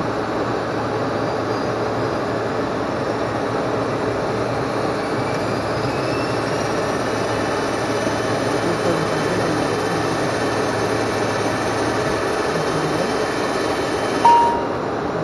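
Steady flight-deck noise of an ATR 42-500 turboprop, its engines and propellers running. A short beep sounds near the end.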